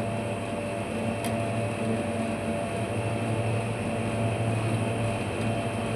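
Refrigerator compressor running with a steady, even hum, with one faint click about a second in.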